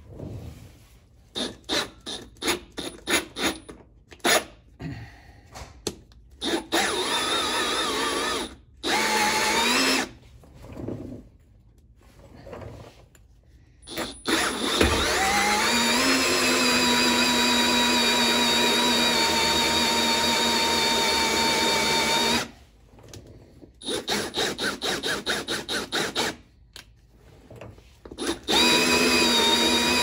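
Power drill driving a hole saw into a boat hull, cutting the hole for a thru-hull transducer. It starts in many short trigger bursts, then runs under load in long steady stretches, its pitch rising as it spins up, with another spell of short bursts near the end.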